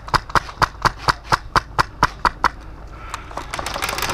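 Sharp clicks in a steady rhythm of about four a second, stopping about two and a half seconds in, then a faster, fainter patter of clicks building near the end.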